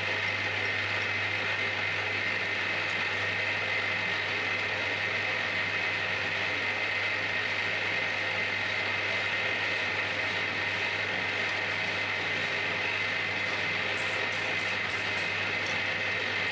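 Milling machine running steadily, a constant mechanical hum with a high gear whine from the spindle drive; a few faint ticks near the end.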